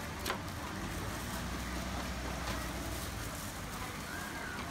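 Street background with a low rumble of passing traffic, strongest in the middle. A single sharp tap comes shortly after the start.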